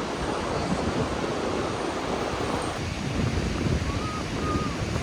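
Wind buffeting the microphone over the wash of ocean surf, a steady rushing noise with gusty low rumble.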